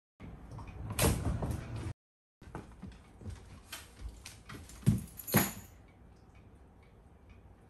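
A door opening about a second in, then a string of light clicks and knocks as a Shiba Inu greets a person coming home: paws and claws on a vinyl floor, footsteps and a bag being put down, with two louder knocks about five seconds in. Quiet room tone follows for the last couple of seconds.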